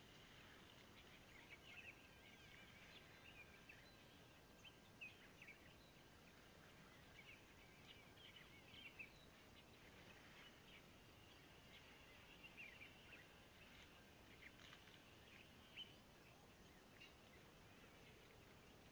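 Faint outdoor ambience: many small birds chirping and twittering in short, scattered calls over a low steady hiss.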